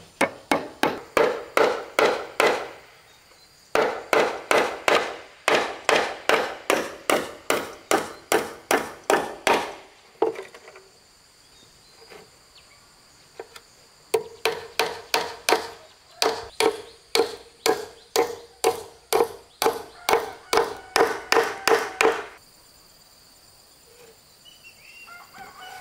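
Rapid, regular blows on wood, about three a second, in three runs with pauses between. A steady high insect drone underneath, and a few bird chirps near the end.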